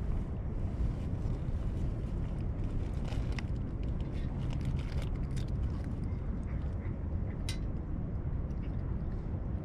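A cat eating from a stainless steel tray: scattered small clicks and licks of chewing and lapping, one sharper click near the end. A steady low rumble runs beneath and is the loudest sound.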